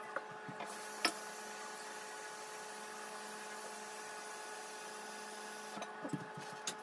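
Kitchen tap running water into a pot to fill it, an even hiss that starts just under a second in and stops about five seconds later. A steady hum sits underneath, with a few light clicks near the start and end.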